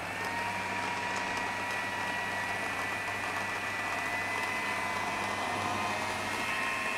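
Electric food processor motor running steadily, its blade chopping cooked spinach, a low hum under a high whine.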